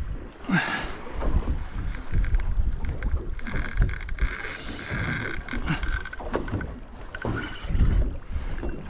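Wind buffeting the microphone and water slopping around a small boat at sea, in uneven gusts, with a thin steady high whine through most of it.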